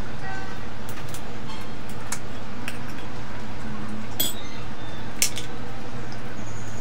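Crab being eaten by hand: scattered sharp clicks and crackles as pieces of shell are pulled apart and bitten, the sharpest about five seconds in, over a steady background hiss.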